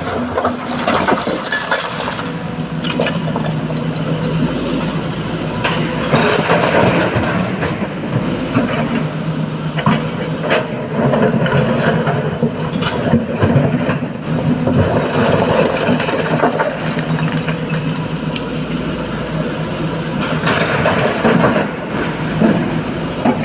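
SANY SY225 excavator's diesel engine running steadily, swelling and easing every few seconds as it works, with scattered knocks and clatters over it.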